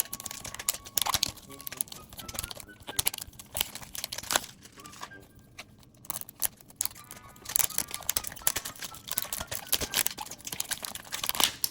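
Packaging crinkling and tearing in irregular bursts as a mystery toy package is handled and opened.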